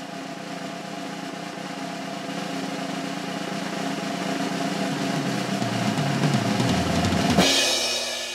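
A drum roll sound effect, building steadily louder and ending about seven seconds in on a cymbal crash that rings out and fades.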